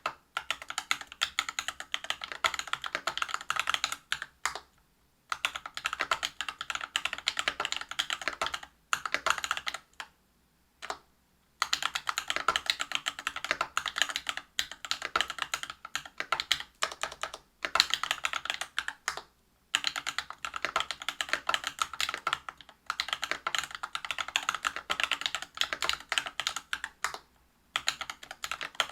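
Fast typing on a Whale 75 mechanical keyboard with lubed Cobalt POM linear switches (63.5 g) on a brass plate and PBT keycaps: a dense run of keystrokes broken by a few brief pauses.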